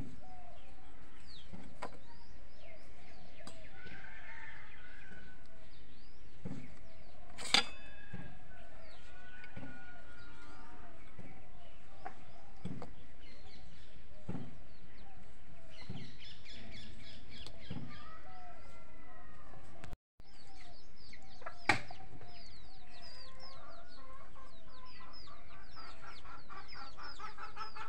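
Chickens clucking with other birds calling in the background, many short calls throughout. Two sharp knocks stand out, about a third of the way in and again near the end. The sound cuts out for a split second about two-thirds through.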